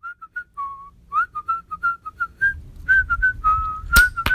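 A person whistling a tune in short notes with small slides between them, and two sharp clicks near the end.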